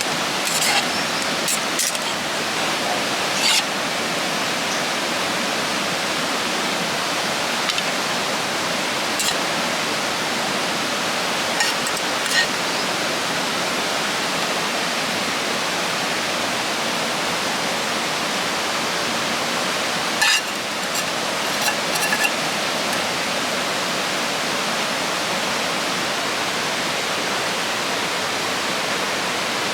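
Steady rush of a flowing river, an even wash of water noise. A few short, sharp clicks are scattered through it, the loudest about twenty seconds in.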